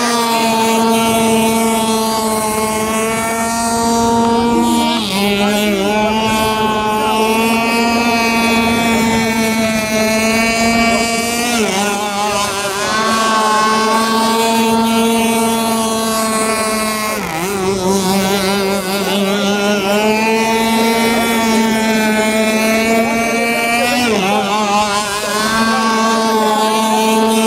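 Gasoline RC speedboat's two-stroke engine running at high speed with a high, buzzing whine. The pitch dips briefly four times, roughly every six seconds, and climbs back each time.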